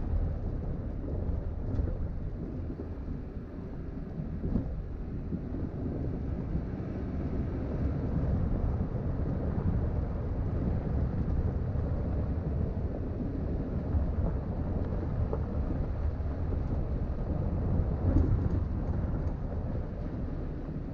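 Vehicle driving over a rough dirt road: an uneven low rumble of tyres, suspension and engine, with a louder bump about four and a half seconds in and another, the loudest, about eighteen seconds in.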